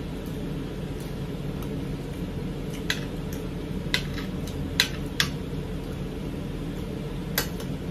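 Metal spoon clinking against ceramic plates about five times, in short sharp ticks, over a steady low hum of room machinery.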